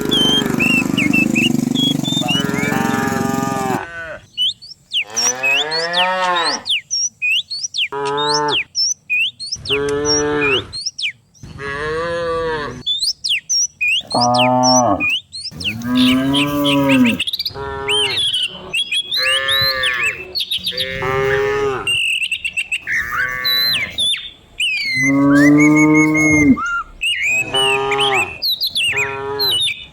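A herd of cattle mooing: one call after another, some overlapping, each rising and falling in pitch. It follows a steady noisy hum in the first few seconds.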